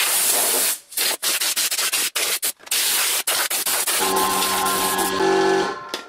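Compressed-air blow gun hissing loudly in a rapid series of short blasts as it blows dust out of a desktop computer case. About four seconds in, a steady hum with several tones joins the hiss, the air compressor running.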